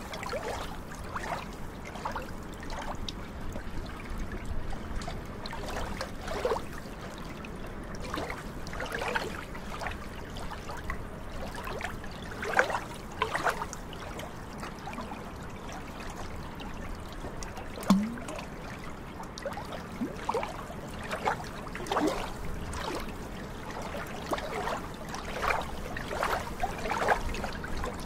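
Small waves of glacial meltwater lapping and trickling at the shoreline in irregular splashes, with one louder plop about eighteen seconds in.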